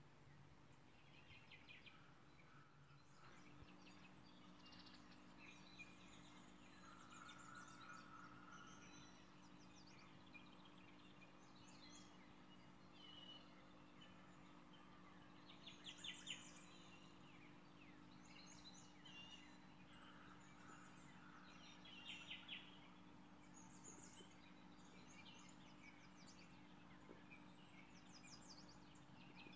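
Near silence: faint bird chirps over a low steady hum.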